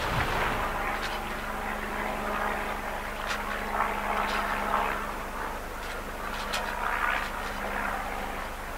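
A steady low engine drone with water splashing and hissing along a hull.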